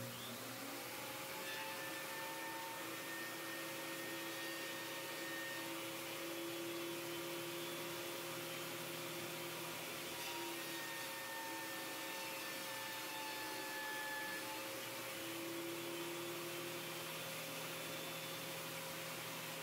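Craftex CX125HC benchtop helical-head thickness planer running while a pine board feeds through it without hesitating. Its motor whine rises at the start and glides down at the end as it shuts off.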